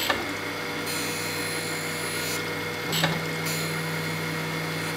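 Jones and Shipman 540 surface grinder running, its wheel grinding a steel milling-vise jaw under flood coolant: a steady motor hum with a hissing grind that swells and fades as the table traverses, and two sharp ticks. The right end grinds heavier because the jaw's unsupported tip deflects.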